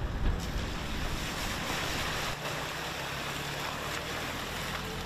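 An SUV driving slowly through shallow floodwater, its tyres swishing and splashing water in a steady rush, with its engine running low underneath.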